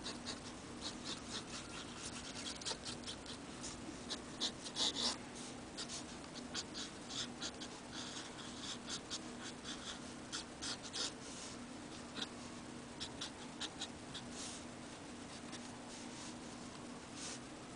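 Steel nib of a circa-1955 Onoto De La Rue fountain pen scratching across paper in quick, irregular hatching strokes, with a louder run of strokes about five seconds in. A steady low hum runs underneath.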